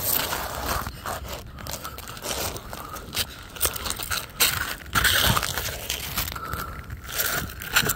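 Irregular crunching and scraping of slick, frozen grass under a person's body as he moves over it.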